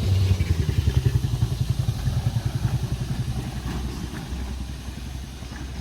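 A motor vehicle passing on the road, its engine pulsing quickly and fading steadily as it moves away.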